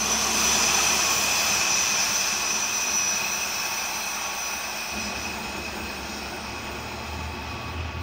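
DR V100 (class 202) diesel-hydraulic locomotive moving away along a curve, its engine and running noise fading steadily, with a high steady wheel squeal from the curve that dies away near the end.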